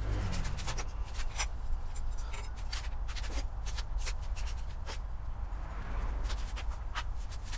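Irregular clicks, taps and rustling of hands working on a motorcycle's fuel tank and front fittings, over a steady low rumble.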